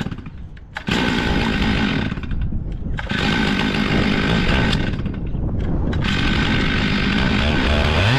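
Stihl MS 661 two-stroke chainsaw with a 36-inch bar, mounted in an Alaskan mill. It runs low at first and is throttled up to full revs about a second in. It drops back briefly twice and then holds at full throttle.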